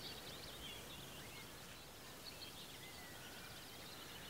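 Faint birdsong: small birds chirping and twittering over a quiet background hiss of still outdoor air.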